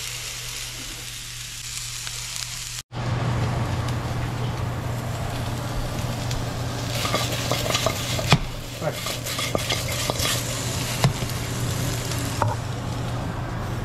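Pork trotter pieces sizzling as they sear in a hot pan, with crackling and a couple of sharp knocks as the pieces are moved around in the pan. The sound cuts out briefly about three seconds in.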